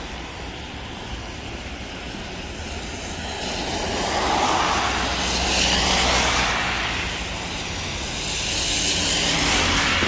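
Road traffic passing: a steady low rumble, with vehicles swelling past twice, about four to six seconds in and again near the end.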